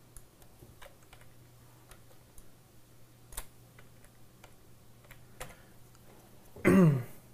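Scattered faint clicks of a computer mouse and keyboard while a photo is being edited, over a steady low hum. Near the end a man gives a short wordless vocal sound that falls in pitch.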